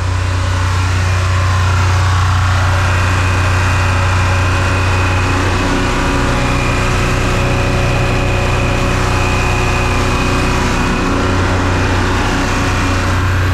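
Detroit Diesel 2-71 two-stroke diesel engine on a generator running steadily at high speed with no load, sounding like it is really screaming, on a freshly adjusted governor.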